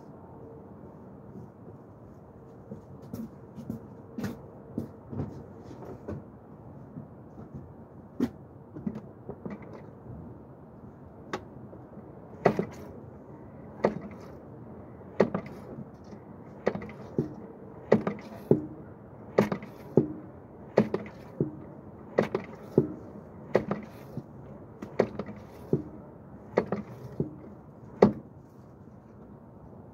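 Clutch pedal being pumped over and over to bleed the clutch hydraulics: paired knocks as the pedal goes down and comes back up. The knocks are sparse and faint at first, then steady and louder about halfway through, roughly one pair every second and a half.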